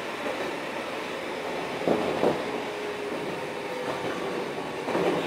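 Eizan Electric Railway Deo 700 series electric railcar (car 721) running, heard from inside the car: steady running noise with a faint humming tone. Two knocks come close together about two seconds in, and another near the end.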